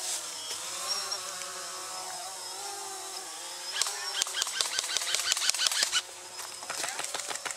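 Airsoft rifle firing in rapid strings of shots, starting a little past halfway, breaking off abruptly about six seconds in, then firing again near the end.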